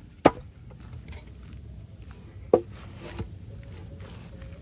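Two sharp knocks about two seconds apart, each with a brief ring, and a fainter knock after them, as camp gear and food are handled while getting out something to eat.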